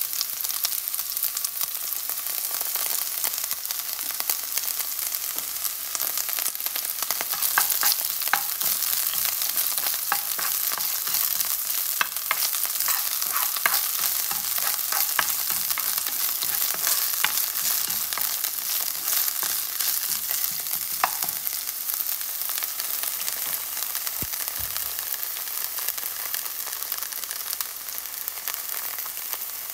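Chopped spring onions sizzling in a little olive oil in a nonstick frying pan, a steady fry hiss. Through the middle stretch, a utensil stirring the onions around the pan adds scattered clicks and scrapes.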